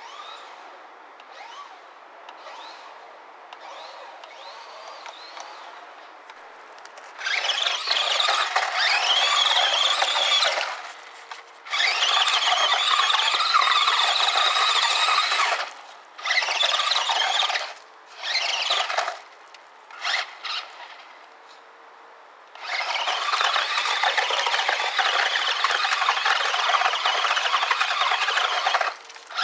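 A 1/18-scale HPI Maverick ION MT electric RC monster truck with its brushed motor and gears whining high-pitched in throttle bursts. Its pitch rises and falls with speed. The whine is faint for the first few seconds. Then come two long full-throttle runs, three short blips, and another long run near the end.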